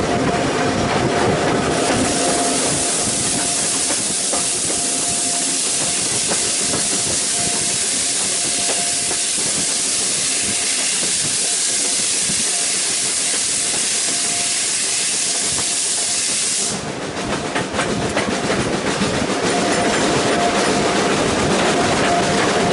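Steam locomotive blowing off steam: a loud, steady hiss that starts about two seconds in, runs for about fifteen seconds and cuts off sharply, leaving the rumble of the standing train.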